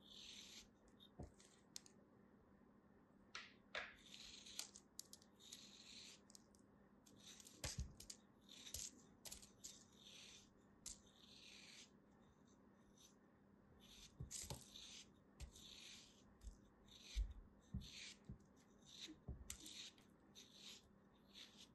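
A small blade cutting and scraping into soap packed in kinetic sand, with sand crumbling away: many short, irregular, crisp scratching and crunching strokes, and a few dull knocks.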